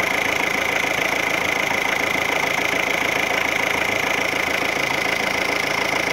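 Renault Megane's 1.9 four-cylinder diesel engine idling steadily, with a steady high whine running through the sound.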